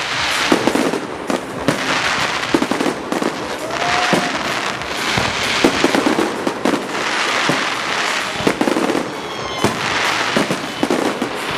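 Aerial fireworks bursting in rapid succession, bangs over a dense crackle, with a few short whistling glides.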